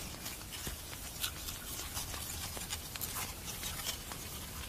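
Faint, steady rustling and fine crackling of a swarm of siafu driver ants crawling over chicken carcasses, with many small scattered ticks.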